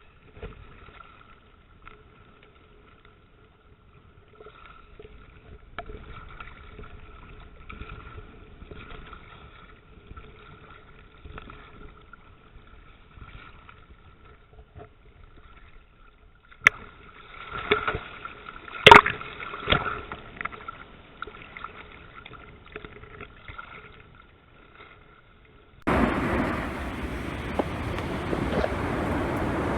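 Muffled underwater sound from a diver's camera housing: faint steady hum and scattered clicks, with a few louder bursts about two-thirds of the way through. About 26 seconds in it cuts abruptly to a loud, steady rushing noise.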